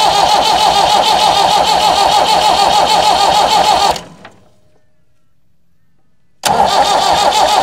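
Massey Ferguson 178's four-cylinder Perkins diesel cranked on the starter motor at full throttle, turning over evenly without firing, with its injector lines loosened to bleed air from the fuel system. The cranking stops about 4 s in, and a second crank begins about two and a half seconds later.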